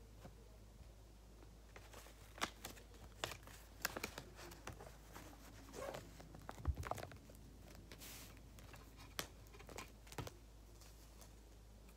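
Paper crinkling and rustling as a hand-drawn paper squishy is handled and worked, in irregular small clicks and crackles, with a longer swish about eight seconds in.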